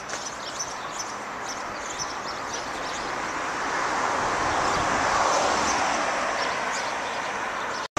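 A vehicle passing on the road: its tyre and engine noise swells to a peak about halfway through and fades again, over faint high chirps in the first few seconds. The sound cuts off abruptly just before the end.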